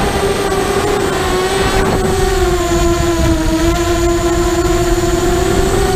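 Mini FPV racing quadcopter's motors and propellers whining steadily in flight, heard through the onboard camera. The pitch sags a little about three seconds in and climbs back near the end as the throttle changes.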